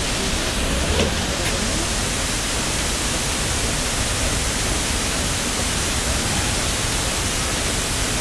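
Water rushing steadily through the sluices of a canal lock as the chamber empties, an even, loud roar of flowing water.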